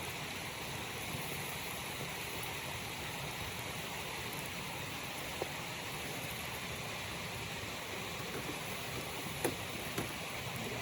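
Steady rushing of a waterfall. A few sharp clicks come in the second half.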